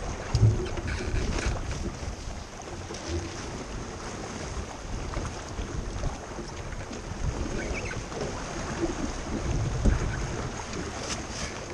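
Wind buffeting the microphone and water rushing and slapping along the hull of a small racing sailboat under way, with a few low knocks, one about half a second in and another near the end.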